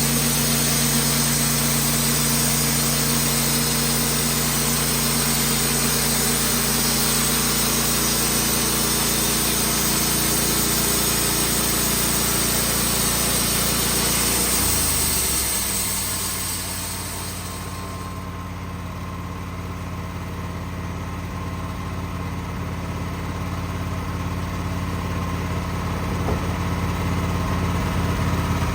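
Wood-Mizer band sawmill running under load, its blade cutting through a maple log with a steady high hiss over the engine. About halfway through, the engine pitch drops and the sawing hiss fades away as the cut finishes, leaving the engine running near idle.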